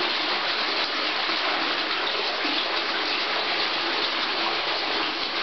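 Water running and splashing steadily into a fish tank, circulated by a pump that runs 24 hours a day.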